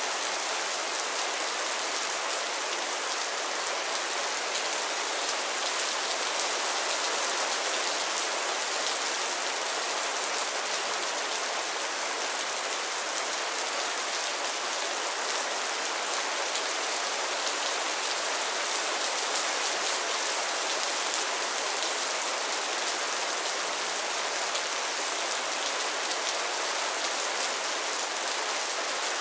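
Mild rain falling steadily on a roof and the ground: an even hiss of fine drops, mostly high in pitch, with no break or change.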